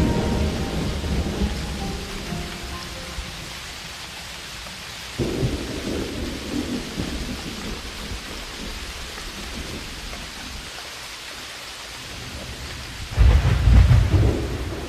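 Steady rain falling, with rolls of thunder: a rumble about five seconds in and a louder, deeper one near the end.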